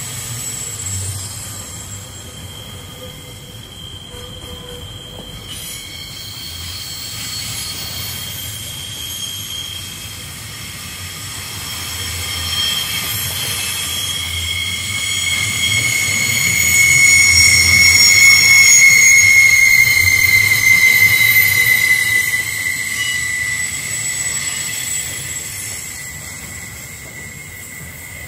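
Freight train wagons rolling through a tight curve, their wheel flanges squealing in several high tones at once over a low rumble of the wheels. About halfway in a strong squeal sets in and slowly drifts lower, and the squealing is loudest about two-thirds of the way through.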